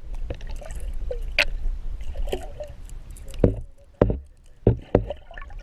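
Water sloshing and splashing against a small fishing boat over a steady low rumble, with four sharp knocks or thumps in the second half.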